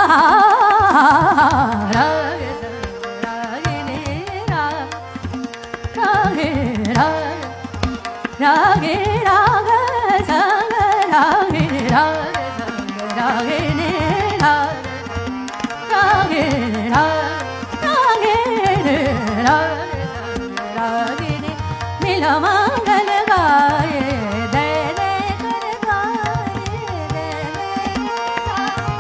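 Female Hindustani classical vocal sung in long, ornamented glides, accompanied by tabla with deep, regular bass-drum strokes and a steady drone underneath.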